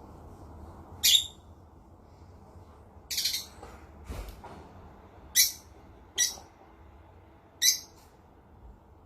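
A parrot squawking in short, loud, shrill calls spread a second or two apart: five of them, the second a little longer, plus one fainter call in between. A faint steady hiss lies underneath.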